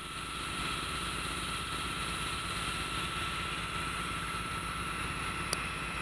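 Airman PDS750S portable diesel screw air compressor running steadily, with a steady high whine above the engine. A single short click sounds near the end.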